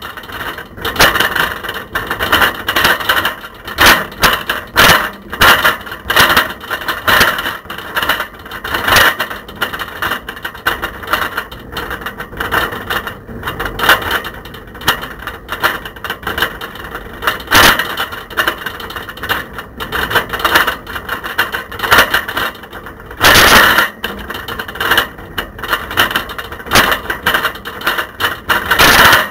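Camera rattling loose in a bicycle basket while the bike is ridden: a constant, irregular clatter of knocks and rattles, with a louder burst of it about three-quarters of the way through.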